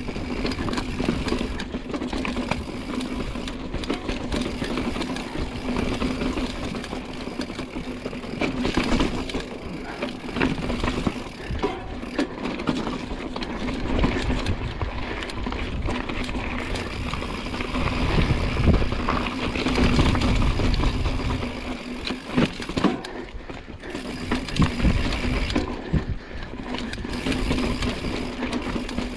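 Mountain bike riding down a rough, rocky ravine trail: continuous tyre and ground noise with many knocks and rattles from the bike over bumps.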